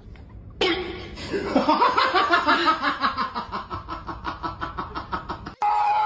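A person laughing hard in a long run of rapid, evenly repeated 'ha-ha' pulses that start about half a second in and slowly fall in pitch. Near the end it cuts abruptly to a loud, steady pitched tone.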